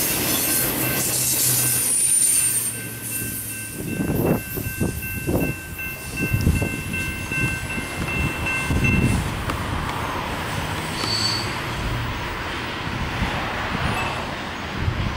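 Double-stack intermodal freight cars rolling past, with rumble and a brief high wheel squeal near the start, then fading as the end of the train moves off. A steady high ringing from the grade-crossing signal bell runs alongside and stops about nine seconds in, once the train has cleared.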